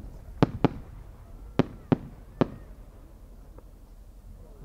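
Sharp, irregular cracks from the small bursts a No. 8 aerial firework shell sets off as it climbs: about six in the first two and a half seconds, then one faint crack.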